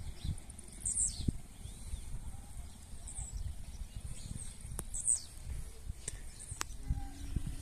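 Blue-black grassquit (tiziu) singing, a short high call repeated three times about two seconds apart, over a low rumble of wind on the microphone.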